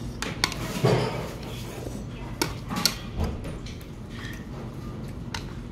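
Eating sounds: metal chopsticks and a spoon clicking sharply against a plastic takeout food tray several times while noodles are picked up, with chewing between.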